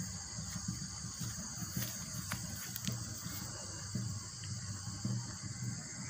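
Steady high-pitched insect chorus, crickets or cicadas, under an irregular low rumble and a few faint clicks from the phone being moved along the bank.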